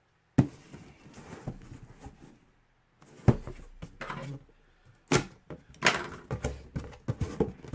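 A cardboard hobby box being handled and opened: a few sharp knocks and thuds, close together near the end, with faint rustling of cardboard and wrapping in between.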